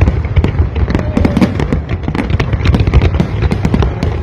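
Fireworks display going off continuously: a dense barrage of bangs and crackling over a deep rumble, many shells bursting every second.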